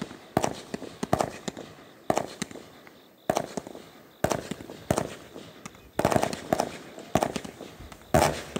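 Aerial fireworks going off in a rapid series: about ten sharp bangs, roughly one a second, each trailing off in a short echo.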